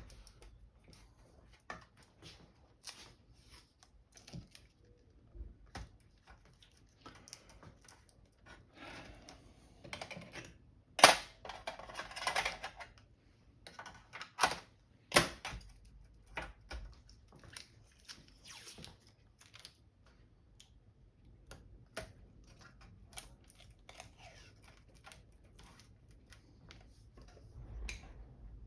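Irregular light clicks and taps, with a few short rustling scrapes and two sharper snaps, from hands handling tape and small parts inside an opened LCD monitor.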